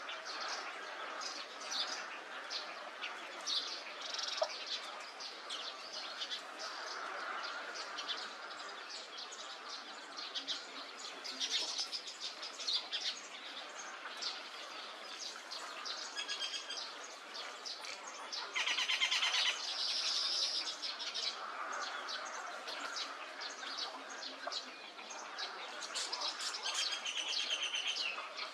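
Chorus of many birds calling and chirping at once, with short overlapping calls throughout and a louder burst of calling about two-thirds of the way through.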